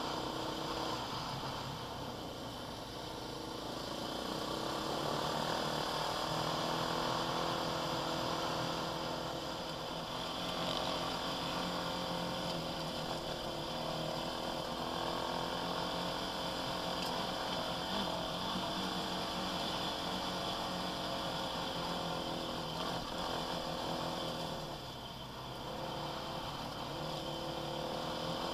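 Quad bike engine running under load, its pitch rising and falling with the throttle, with a brief easing off about 25 seconds in before it picks up again.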